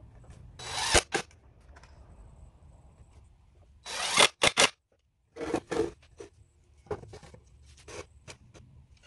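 Cordless DeWalt impact driver driving long screws into a wooden board in three short bursts, about one, four and five and a half seconds in. Clicks and knocks from handling the wood fall in between.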